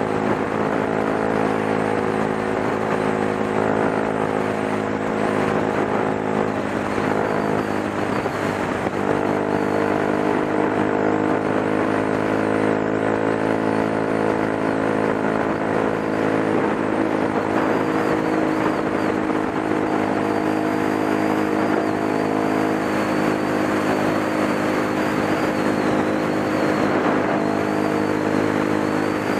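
Dual-sport motorcycle's engine running steadily while riding at a constant pace, over a steady rush of wind and road noise.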